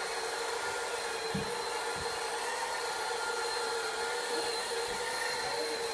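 Robot vacuum cleaner running steadily: a constant motor hum with a thin high whine above it, and a couple of soft low thumps about a second and a half and two seconds in.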